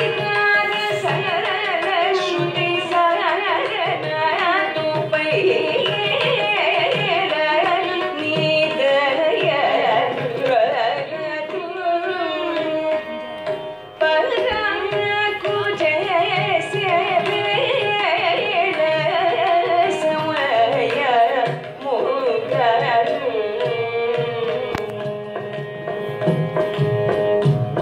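Live Carnatic vocal music: a woman singing a kriti with violin accompaniment and mridangam drumming.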